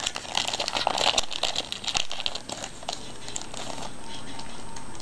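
Crinkling of a trading-card pack's wrapper as the pack is handled, a quick run of small rustles and clicks for the first two and a half seconds, then quieter.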